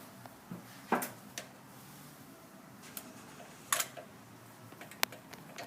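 A few sharp clicks and light knocks of hand tools and engine parts being handled during spark plug replacement, the clearest about a second in, near the middle and near the end.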